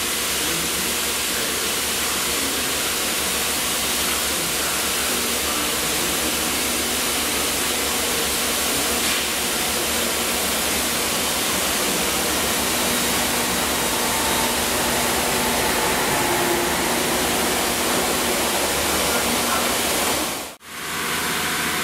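Steady rushing hiss of rain and wind, with a Transport for Wales diesel multiple unit running past the platform beneath it; the train's faint hum swells slightly late on.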